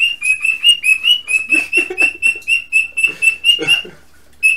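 Cockatiel chirping: a fast, even run of short, high chirps, about five a second, which stops for half a second near the end and then starts again.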